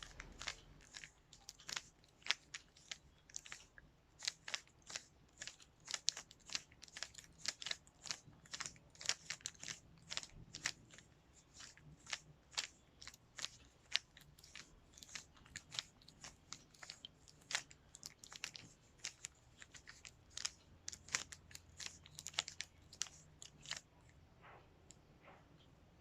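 Rubik's cube being turned quickly by hand: a rapid, irregular run of plastic clicks and clacks as the layers are twisted, several a second, thinning out briefly near the end.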